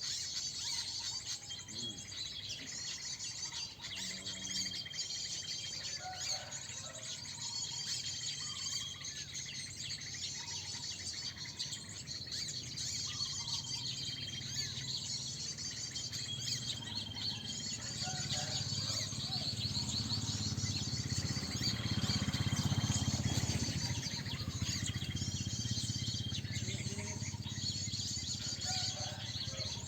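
Many small birds chirping densely at once, with a short steady whistled note that repeats every few seconds. A low rumble swells in the second half, loudest a little past the middle, then eases.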